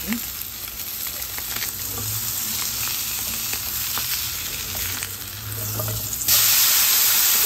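Tilapia fillet sizzling in oil and butter in a hot nonstick frying pan while a silicone spatula slides under it and turns it over, with a few light scrapes and taps. About six seconds in, the sizzle suddenly gets much louder.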